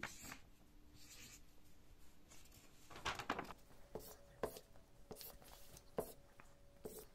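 Faint scratching of a felt-tip Stabilo Boss highlighter marking a printed paper booklet, in several short strokes. A paper page rustles as it is turned about three seconds in.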